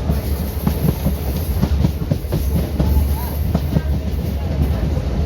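Indian Railways ICF passenger coach running along the track: a steady low rumble of the running gear, with wheels clicking and clacking over rail joints throughout.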